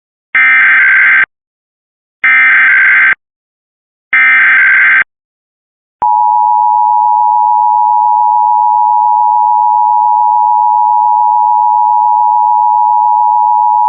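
Emergency Alert System tones for a Required Monthly Test. First come three one-second bursts of the warbling SAME digital header, the coded alert data, evenly spaced about two seconds apart. After a short gap comes the steady two-tone EAS attention signal (853 and 960 Hz), held for about eight seconds, which signals that an emergency message follows.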